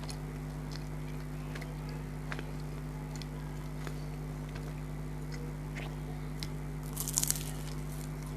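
Close-miked eating of chicken snacks: soft chewing clicks throughout, with a louder crunchy bite about seven seconds in, over a steady low hum.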